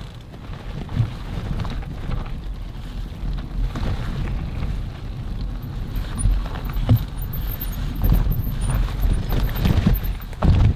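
Mountain bike riding a rough off-road trail: a low rumble of wind on the microphone and tyres on the ground, with irregular knocks and rattles as the bike jolts over bumps, getting louder as it goes.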